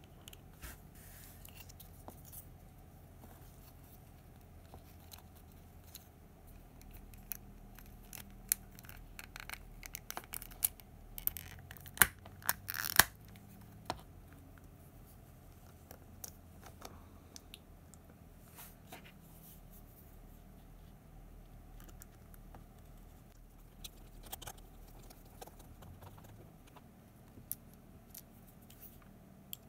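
Small plastic webcam parts being handled and fitted together by hand: faint, scattered clicks and short scrapes, thickening into a run of sharper clicks a little before halfway through, over a low steady room hum.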